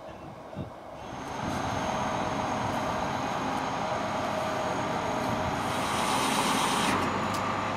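Heavy machinery running steadily, an engine-like noise with a thin high whine over it, coming up loud about a second in.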